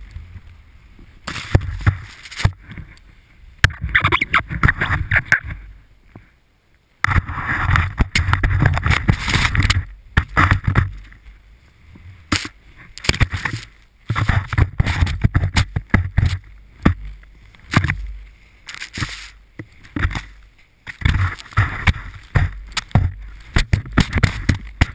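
Wind rushing over an action camera's microphone and skis hissing and scraping through soft, chopped-up snow, coming in irregular surges with short lulls, one almost quiet about six seconds in.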